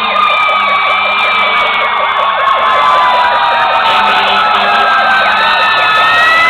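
Several fire truck sirens sounding together: a fast, repeating yelp over slower wails that rise and fall in pitch.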